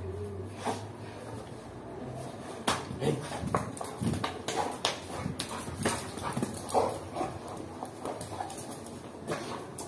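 Two dogs play-fighting at close quarters: short dog vocalizations among scuffling and sharp irregular clicks, busier from about three seconds in.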